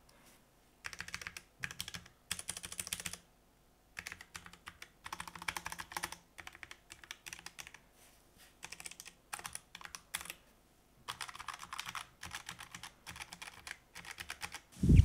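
Typing on a Redragon Horus Mini Pro (K632) low-profile 60% mechanical keyboard with Redragon low-profile red linear switches: bursts of rapid key clicks with short pauses between them. A single louder thump comes near the end.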